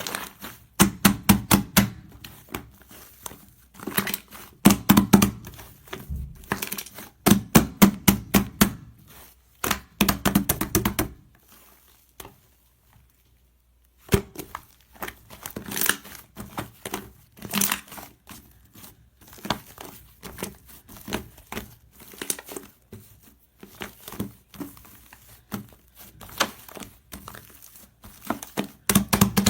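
Crinkling and rapid clicking handling noises in bursts of a few seconds, with a near-silent pause about twelve seconds in.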